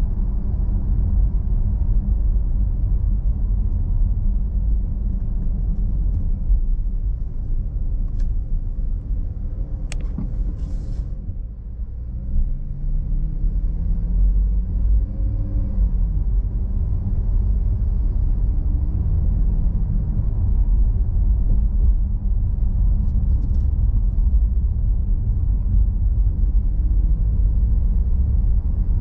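Steady low rumble of a car driving, heard from inside the cabin: road and engine noise, with the engine note gliding up and down for a few seconds about halfway through. Two faint clicks come in the first half.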